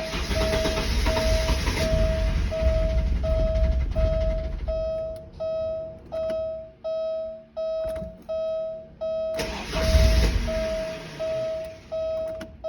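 Porsche 944 S2's 3.0-litre four-cylinder engine being cranked in two start attempts, the first about five seconds long and a shorter one about nine seconds in that winds down, neither leaving it running: the intermittent hard start it suffers from. A warning chime beeps steadily about once every 0.7 seconds throughout.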